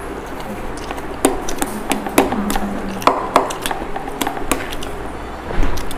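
Forks clinking and scraping on plates of chow mein, a run of sharp clicks, with a dull thump near the end.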